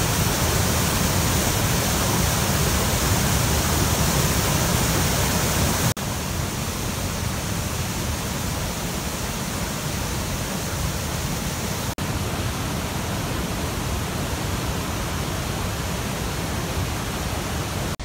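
Tahquamenon River rapids and waterfall rushing: a loud, steady noise of falling and churning water. It breaks off for an instant twice, about a third and two thirds of the way through, and is slightly quieter after the first break.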